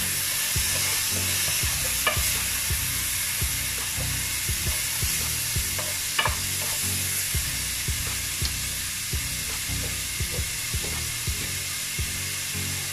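Diced chicken sizzling in hot olive oil in a non-stick frying pan, with a wooden spoon knocking and scraping against the pan as the pieces are stirred.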